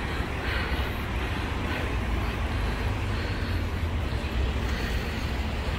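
Steady rumble of road traffic passing along a street.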